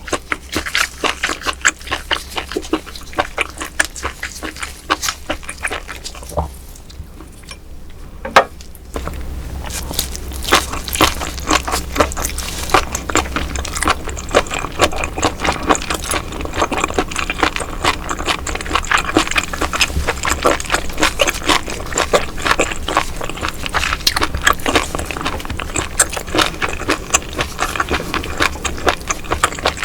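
Close-miked chewing of roe-filled baby octopus (jjukkumi): a dense, continuous run of mouth clicks and smacks. It eases for a few seconds about a third of the way in, broken by one sharp click.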